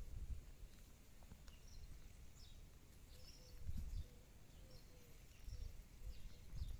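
Faint outdoor ambience: low rumbling gusts of wind on the microphone, with scattered short, high bird chirps.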